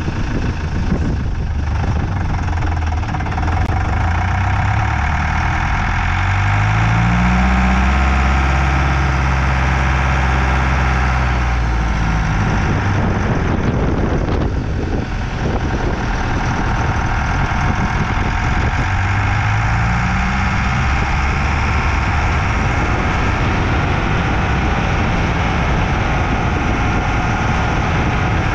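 Vehicle engine running while driving. It revs up about six seconds in and again near twenty seconds, over a steady rushing noise.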